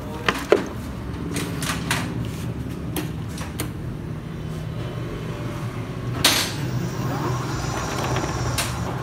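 Electric bicycle's rear hub motor turning the wheel with a steady low hum, running normally on a newly fitted speed controller. Sharp clicks of handling near the start and a knock about six seconds in.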